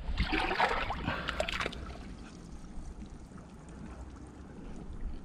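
Shallow tide-pool water splashing and trickling as a gloved hand reaches in under a rock, busiest in the first second or so and then settling to a faint wash.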